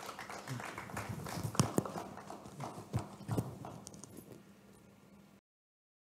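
Irregular knocks, thumps and rustling from books and papers being handled on a table near the microphone, with louder thumps about one and a half, three and three and a half seconds in. The sound fades and cuts off shortly before the end.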